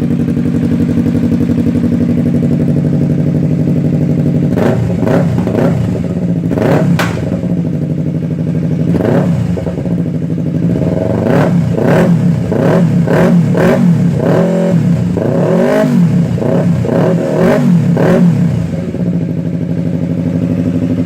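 Yamaha R3/MT-03 parallel-twin engine through an M4 Street Slayer aftermarket exhaust, idling steadily, then revved with a series of quick throttle blips, each rising and falling back. The blips run from about four seconds in until near the end, when it settles back to idle.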